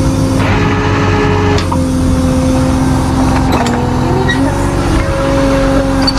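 Truck engine running with a steady droning hum. An extra tone joins briefly about half a second in, and the pitch dips and wavers for about a second near the middle.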